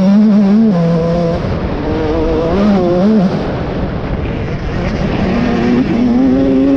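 Motocross dirt bike engine heard on board from the rider's helmet, its note rising and falling as the throttle opens and closes. It eases off around the middle and picks up again near the end.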